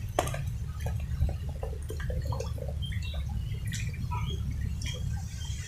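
Small irregular splashes and squelches of hands groping for fish in shallow muddy pond water, over a steady low rumble.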